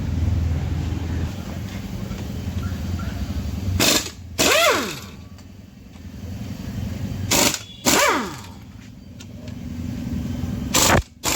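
Three short bursts from a power tool, about three and a half seconds apart, each trailing off in a falling whine as it spins down. A steady low hum runs under the first few seconds.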